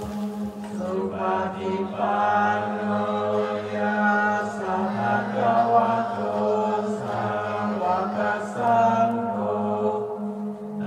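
Congregation chanting Tibetan Buddhist prayers in unison: a steady, low-pitched drone of many voices, moving in short phrases.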